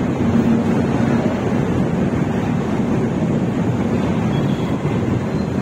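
Steady rushing wind on the microphone aboard a moving train.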